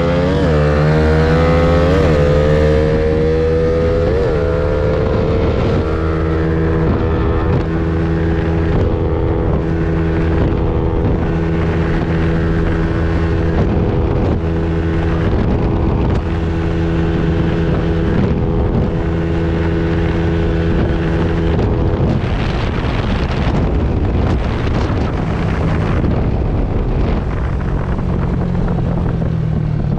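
Yamaha NMAX v2 155 scooter with a CRP bolt-on pipe running under way: the engine note climbs in pitch over the first few seconds as it picks up speed, then holds steady at cruising speed, with wind on the microphone.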